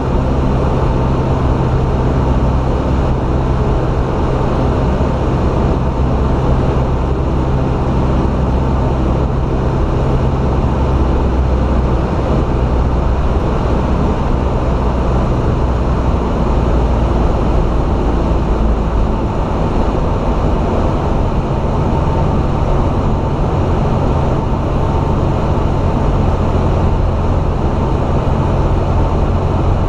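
Single-engine light aircraft's piston engine and propeller running steadily, heard inside the cabin. The engine note changes about two-thirds of the way through.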